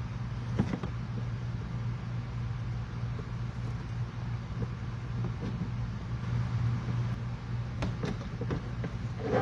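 A steady low machine hum, with a few sharp clicks and taps from handling tools and parts, one about half a second in and a cluster near the end.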